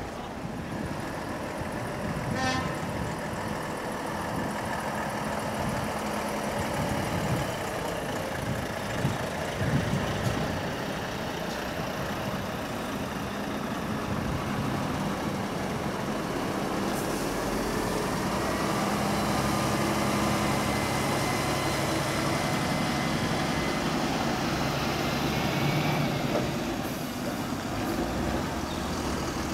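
Heavy trucks' diesel engines running and idling as they roll in slowly, their engine note rising and falling, with a short horn toot about two and a half seconds in.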